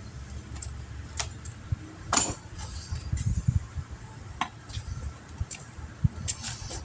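Scattered light metallic clicks and clinks of hand tools being handled while working on a punctured tire, over a steady low rumble.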